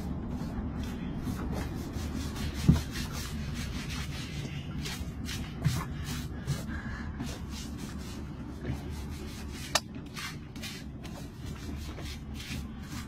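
Scrubbing and scraping of a sea turtle's barnacle-crusted shell, a quick run of repeated rasping strokes. A few knocks stand out, the loudest about three seconds in.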